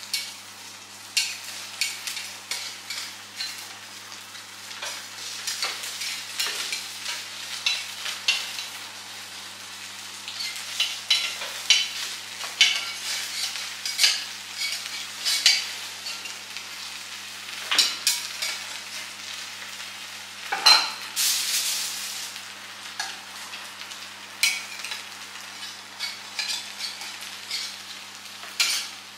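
A utensil stirring and scraping in a pan over food frying, with irregular clicks and taps and a brief louder hiss a little after two-thirds of the way through. A steady low hum runs underneath.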